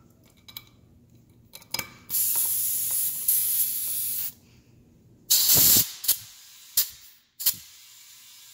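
Compressed air hissing through a digital tire inflator's chuck into a tire for about two seconds, after a few small clicks as the chuck is fitted to the valve stem. Then comes one short loud burst of air with a thud, and three short puffs.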